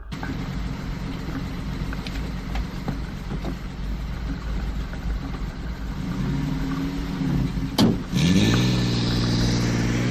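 A car engine running, with a steady low rumble. A sharp click comes near the end, followed by a tone that rises briefly, then holds steady under a hiss.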